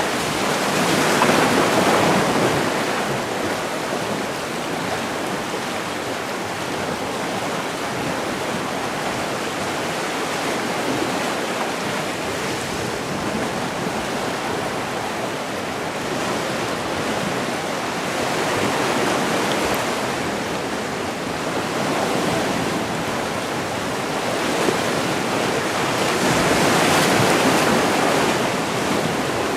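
Sea waves washing onto the shore as a steady rush, swelling louder about a second in and again near the end.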